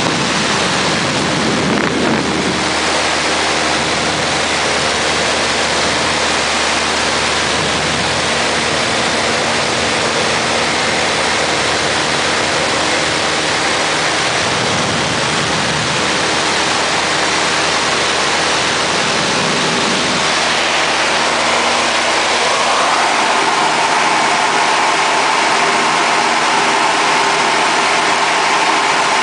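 Light high-wing spotter plane's piston engine and propeller droning steadily with rushing wind noise, heard from inside the cabin. A higher steady tone joins about three-quarters of the way through.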